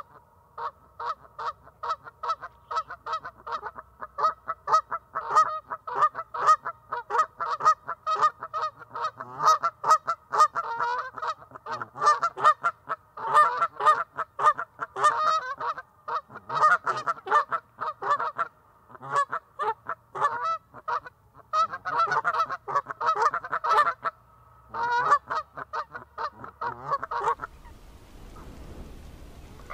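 Canada goose honking in a rapid, unbroken series of short calls, several a second, that stops abruptly near the end.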